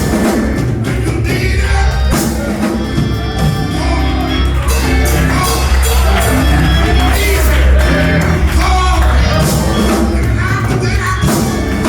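Loud church band music with heavy bass and drums, with voices singing and shouting over it.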